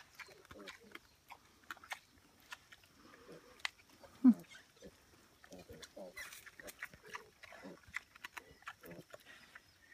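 Feral pigs, a sow and her piglets, giving short, scattered low grunts while they root in leaf litter, with small clicks and rustles between them. One louder grunt comes about four seconds in.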